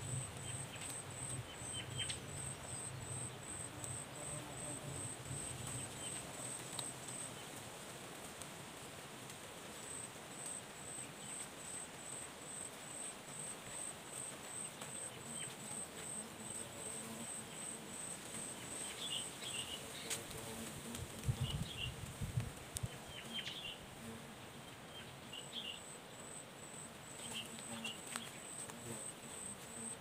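An insect calling in a steady, high-pitched pulse of about three beats a second that stops and resumes twice, with a small bird chirping in short bursts in the second half. A few low knocks come about two-thirds of the way through.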